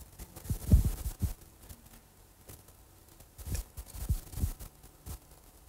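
A handful of soft, irregular low thumps: a cluster in the first second and a half, then several more spaced about half a second apart in the second half. There is no speech.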